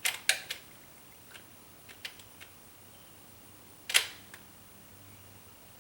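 A series of sharp clicks and taps of hard parts being handled: a quick cluster at the start, a few faint ticks, and one loud click about four seconds in.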